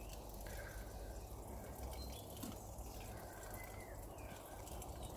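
Quiet garden ambience: faint bird calls over a low steady rumble.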